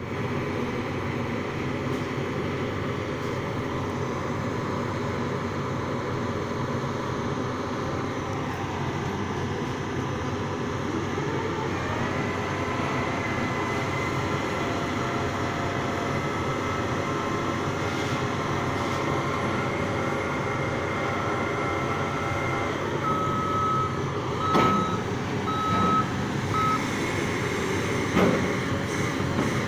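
Sany piling rig's diesel engine running steadily under work, with a steady whine joining in about halfway. Near the end a few short warning beeps sound, and there are two sharp knocks.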